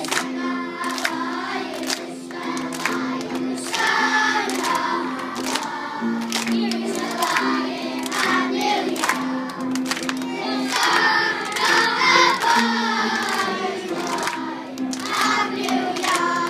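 A choir of young boys singing together in unison over instrumental accompaniment with a steady beat.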